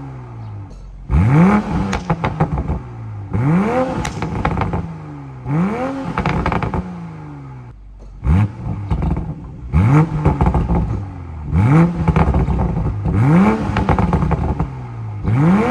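Car engine revved in repeated blips, about one every two seconds, the pitch rising quickly with each blip and sinking back as it drops to idle.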